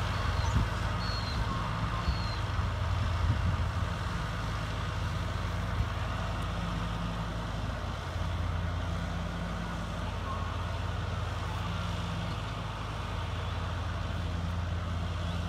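John Deere tractor's diesel engine running steadily at a distance while towing a mower across the grass, a continuous low hum.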